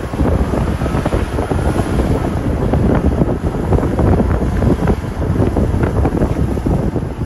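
Wind buffeting the microphone in loud, uneven gusts from a moving car, with the car's road noise underneath.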